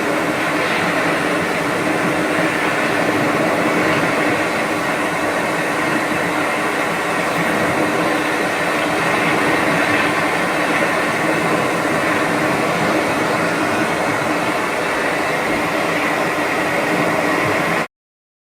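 Steady hum sound from a Hatch sound machine: an even, rumbling noise with faint steady tones running through it, cutting off suddenly near the end.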